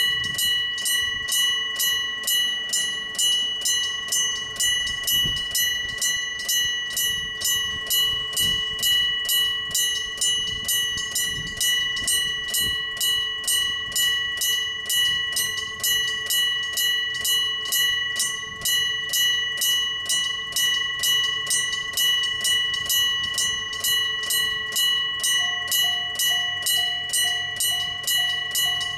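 Electric-bell (dengane-type) railroad crossing alarm ringing, about two strikes a second with a ringing tone that hangs between strikes: the crossing is warning of an approaching train. Near the end a low hum joins the bell.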